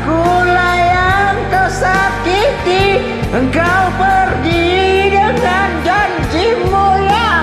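Karaoke backing track of a pop ballad, playing steadily with a low bass, and a wavering, gliding melodic lead line on top between the sung lyric lines.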